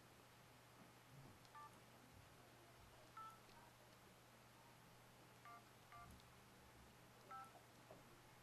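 LG KF600 phone's keypad giving faint short dual-tone key beeps as digits of the SIM unlock (NCK) code are keyed in: five beeps a second or two apart.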